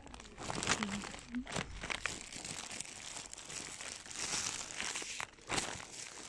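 Clear plastic packaging around folded curtains crinkling and crackling as it is handled and turned over, in irregular rustles with many short sharp crackles.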